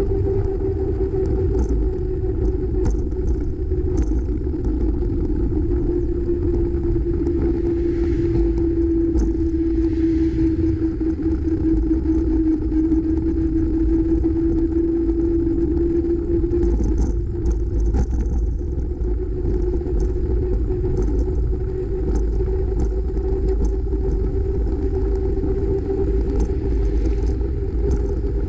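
Wind noise on the microphone of a camera riding on a moving bicycle, with a steady hum from the ride whose pitch sinks slightly through the middle and rises again, and scattered light clicks and rattles from the road.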